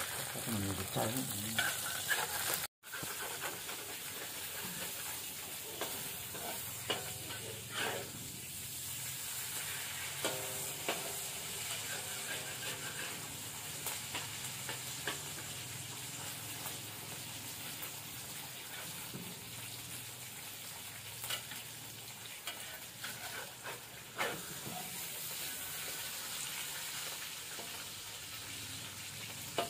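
Eggs frying in oil in a wok, sizzling steadily, with a metal spatula scraping and knocking against the pan now and then. The sound cuts out for an instant about three seconds in.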